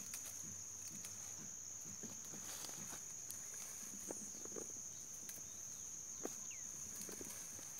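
Insects chirring steadily at a high pitch, with faint scattered snaps and rustles of leaves and branches as seriguela fruit is pulled by hand from the tree.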